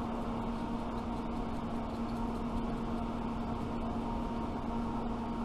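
Steady machine hum with a constant low tone and a fainter higher tone, running evenly without change.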